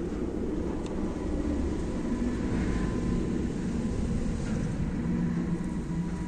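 A steady low mechanical drone, like a motor running, with a faint steady high tone over it.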